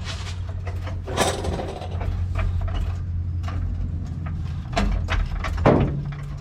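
A steady low machine hum under scattered metallic clicks and clanks of tools and suspension parts being handled, with the loudest knocks about a second in and near the end.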